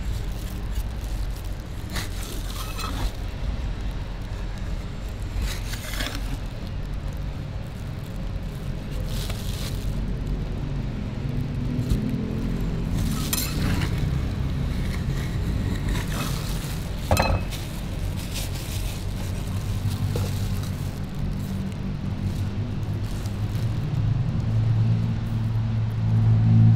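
Metal spatulas scraping and clinking now and then on a frozen steel cold plate as ice cream is scraped into rolls, over a steady low rumble that grows louder near the end.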